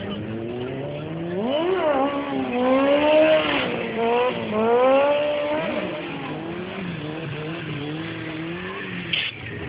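Motorcycle engine revving up and down several times in quick succession during a stunt run, then settling to a steadier, lower drone.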